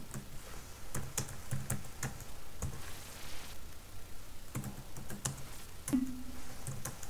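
Typing on a computer keyboard: irregular key clicks in short runs, with pauses between them.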